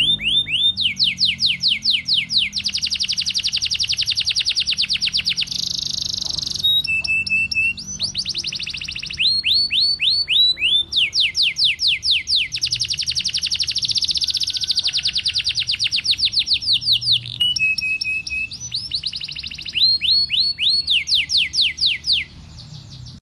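Domestic canary singing in full song: long rolling trills of rapid, repeated downward-sweeping notes, phrase after phrase, changing speed between phrases, with a few short held notes in between.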